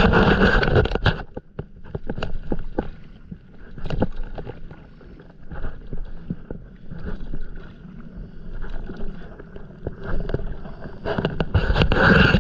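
Stand-up paddleboard paddle strokes in calm sea water: a splashing swell about every one to two seconds, with small splashes and knocks between. A louder rushing noise fills the first second and returns near the end.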